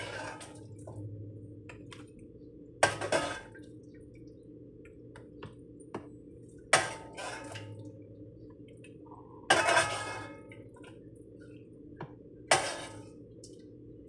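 Cooking pot and utensils clanking as parboiled food is moved from pot to pot: four sharp knocks a few seconds apart, each ringing briefly, over a steady low hum.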